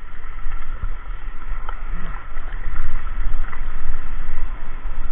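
Shallow seawater sloshing and lapping around a wading person's legs, with steady wind noise on the microphone.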